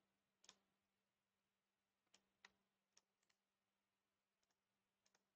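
Near silence broken by about ten faint, unevenly spaced computer keyboard keystrokes, over a faint steady hum.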